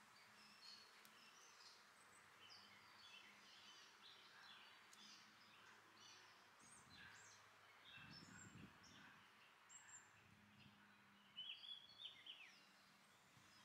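Faint backyard birdsong: several small birds chirping and singing in short phrases throughout, with a louder run of calls about eleven seconds in.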